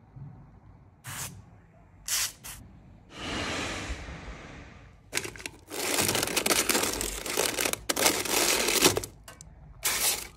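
Parchment paper crinkling and crisp toasted bread scraping as air-fried bread rolls are turned with tongs in a paper-lined air fryer basket. There are a few short bursts, a smooth rush of about two seconds, then a long stretch of dense crackling.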